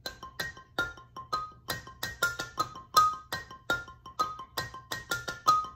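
Xylophone struck with yarn mallets, playing a quick run of about twenty ringing notes, roughly three or four a second: an iPhone ringtone melody.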